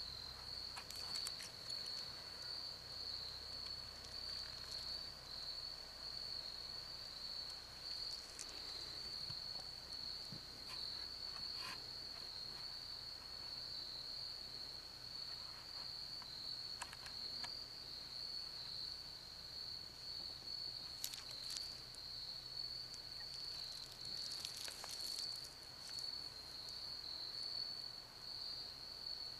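A steady, high-pitched insect chorus that never lets up, with a few faint clicks scattered through it.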